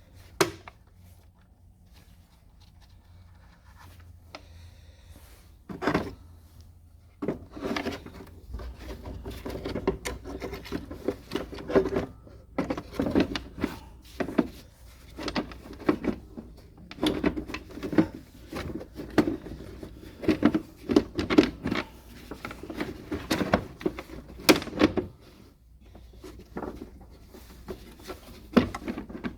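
Hands working at a car's engine air filter housing: a busy run of clicks, knocks and rubbing that starts about six seconds in and thins out near the end.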